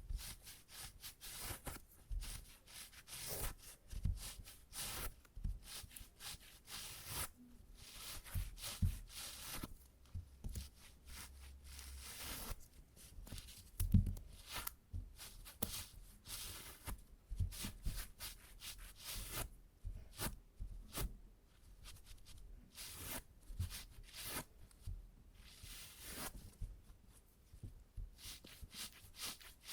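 Sticky adhesive tape pressed onto trousers and peeled off again and again, lifting clipped cat hair out of the fabric, in many short, irregular strokes.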